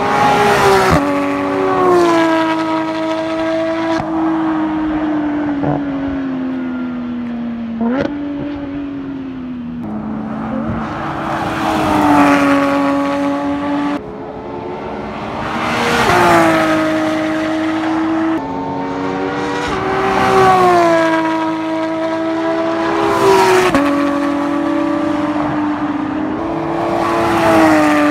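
Porsche 911 GT3 RS's naturally aspirated flat-six revving hard around a cone course. The engine note climbs under acceleration and drops as it lifts or shifts, and it swells loud several times as the car passes.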